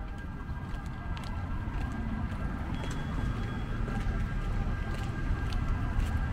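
Street traffic: a low rumble of motor vehicles that grows gradually louder, with a few faint clicks.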